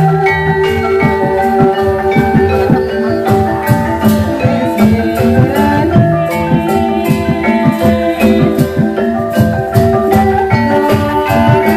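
Live Javanese Banyumasan gamelan music accompanying an ebeg (kuda kepang) trance dance. Struck bronze keyed instruments ring in a busy interlocking melody over steady kendang drum strokes.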